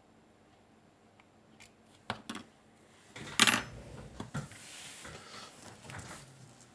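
Small hard objects handled: a few clicks about two seconds in, a sharp clack about three and a half seconds in, then rustling and light clattering.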